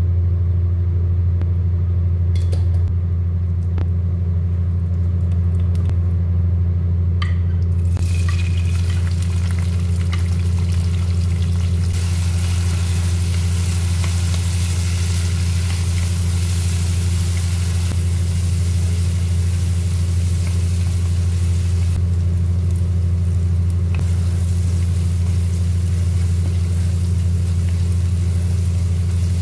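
Chopped onions sizzling in hot oil in a pot as they are stirred with a wooden spoon; the sizzle begins about eight seconds in and dips briefly about two-thirds of the way through. A loud steady low hum lies under it.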